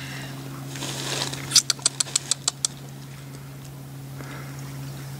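A quick run of about eight sharp clicks, roughly seven a second, a second and a half in, over a steady low hum.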